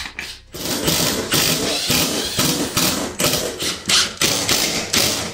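Cordless impact driver hammering as it drives a screw down through a toilet floor adapter into the floor, starting about half a second in and pulsing with the trigger.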